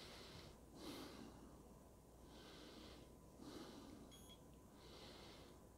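Near silence with faint, regular breathing close to the microphone. A very short, faint high beep about four seconds in.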